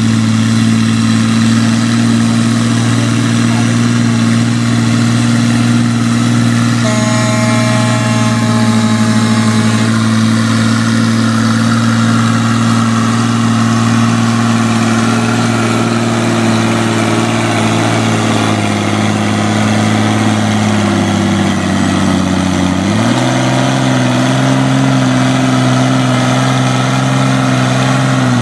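A 6,000 lb class farm pulling tractor's engine running hard at a steady high pitch under load. About 21 seconds in the pitch sags, then jumps back up about two seconds later.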